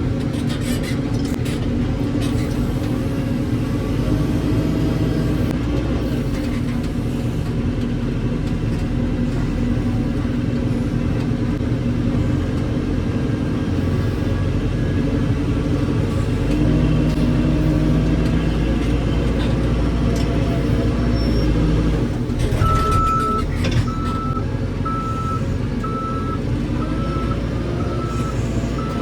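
Heavy diesel engine running steadily, working harder for several seconds past the middle. Near the end a reversing alarm starts beeping, about once a second.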